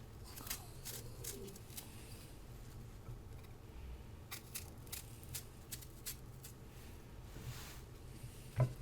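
Knife cutting through a crisp Korean pear: faint, irregular short crisp clicks and scrapes. A brief voice sound comes near the end.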